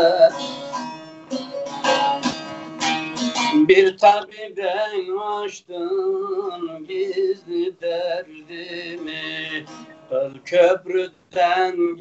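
Bağlama (Turkish long-necked saz) playing a folk tune. The first few seconds are fast, dense strumming, followed by a wavering, ornamented melodic line.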